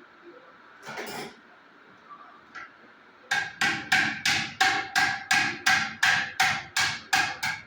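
Hammer blows in a steady run of about fourteen strikes, roughly three a second, each with a ringing metallic tone; a single knock comes about a second in.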